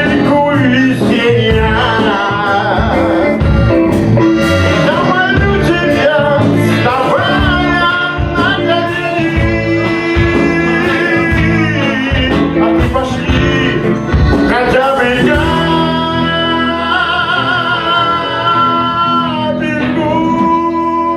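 A live chanson band with guitar plays the song's closing passage, with singing over a busy rhythm of sharp strikes. About 15 seconds in, the band settles onto a long held closing chord.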